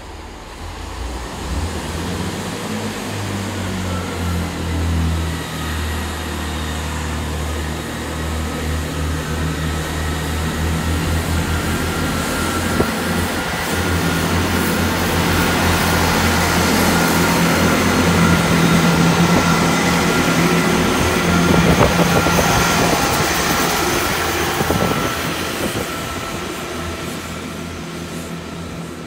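GWR Class 166 Networker Turbo diesel multiple unit departing, its diesel engines revving up from a low throb into a loud run with a steady whine as it passes close by. The sound peaks about two-thirds of the way through, then fades as the train draws away.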